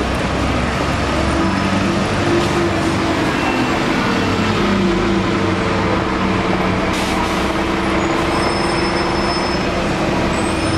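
Motor vehicle engines running amid street noise, with a steady hum that shifts in pitch a few times and faint high whistling tones near the end.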